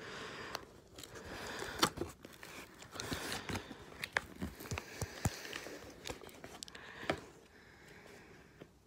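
Packing tape being cut and torn off a cardboard shipping box with a small blade: irregular scraping, crinkling and tearing with sharp clicks as the box is handled, easing off near the end.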